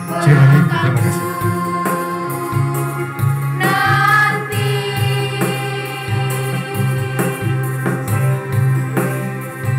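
A choir of schoolgirls singing a slow song over a low instrumental bass line, with one high voice swelling and bending upward about four seconds in.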